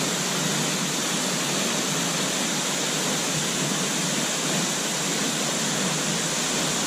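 Waterfall's steady rush of falling water, an even hiss with no let-up.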